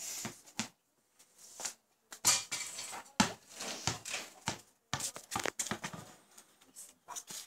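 A rubber basketball bouncing on concrete and striking the wall and a small wall-mounted hoop: a string of irregular knocks and thuds.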